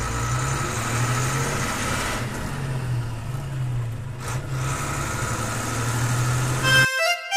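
Car driving, heard from inside the cabin: a steady engine hum with road noise. It cuts off abruptly near the end as music begins.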